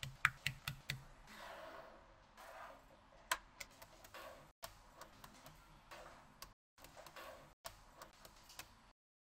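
Small magnetic balls clicking and snapping together as they are handled and placed, with a quick run of four clicks near the start and scattered single clicks over a soft rattling and rustling.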